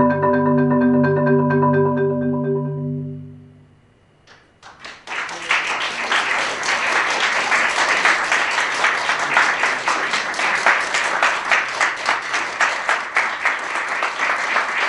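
A marimba holds its final low chord as a roll of quick repeated mallet strokes, fading out about three seconds in. After a second of quiet, an audience breaks into steady applause.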